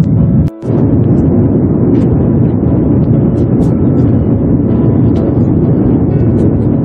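Steady loud cabin noise of a jet airliner in flight, from engine and airflow. The noise drops out for a moment about half a second in, then carries on unchanged.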